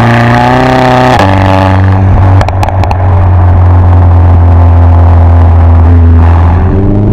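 Mercedes-AMG A45 S's turbocharged 2.0-litre four-cylinder, breathing through a Supersprint exhaust with a 100-cell downpipe, running loud at a steady engine speed. Its pitch drops a step about a second in, a few quick sharp cracks come about two and a half seconds in, and the revs begin to climb near the end.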